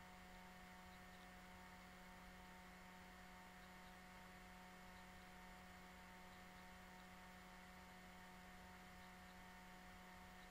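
Near silence: a faint steady electrical hum and hiss from the recording, holding several even tones that never change.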